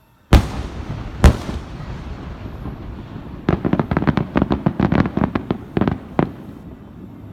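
Aerial fireworks bursting: two loud booms about a second apart, then a couple of seconds later a rapid string of sharp crackling reports lasting about three seconds, with rumbling echo behind them.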